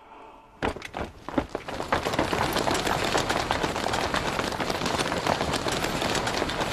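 Footsteps of a group of soldiers hurrying on stone, starting about half a second in and thickening into a continuous, rapid clatter of many feet.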